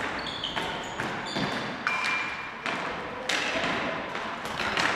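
Ball hockey play on a gym's hardwood floor: the plastic ball and sticks knock together at irregular moments, about seven times, mixed with short high sneaker squeaks, all echoing in the large hall.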